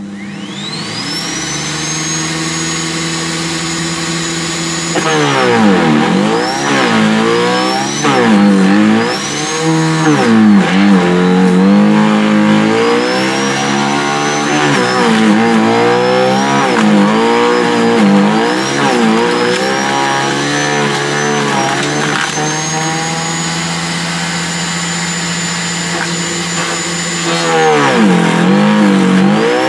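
Sterwins 2500 W electric garden shredder starting up, its motor whine rising quickly to full speed. From about five seconds in it chews branches fed into its blade disc, the motor note dipping and recovering again and again under load. It runs steady and unloaded for a few seconds before branches go in again near the end.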